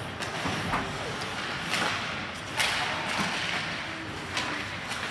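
Ice hockey skates scraping the ice in several short bursts, with sticks knocking on the ice and puck.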